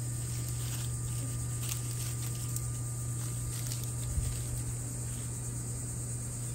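Young nine-banded armadillo rooting in dry leaf litter along a fence: a string of short rustles and scrapes during the first four seconds, then a soft low thump a little past four seconds. Under it runs a steady low hum and a high, even insect drone.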